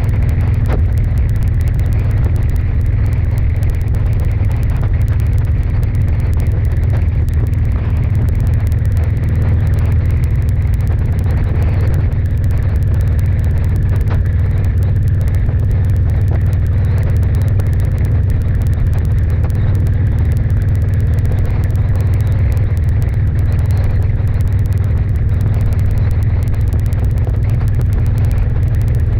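Steady, loud low rumble of wind buffeting the microphone of a moving vehicle-mounted camera, mixed with road and vehicle hum at a constant cruising speed.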